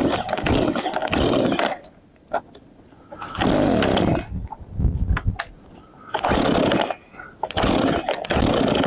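Stihl MS 170 two-stroke chainsaw with a carving bar being revved while it warms up: repeated bursts of about a second at high revs, dropping back between them.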